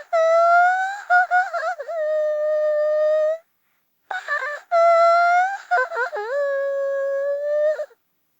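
Cartoon character crying sound effect: a high-pitched voice wails in two long, drawn-out cries with a short pause between them. Each cry wavers, then settles on a long steady held note.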